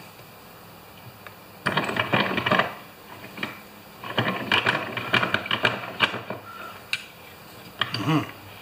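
A hand tool clicking and scraping against a small aluminium-and-brass two-stroke carburetor clamped in a vise, in three bursts of rapid metal-on-metal clicks, as a stuck float bowl is forced loose.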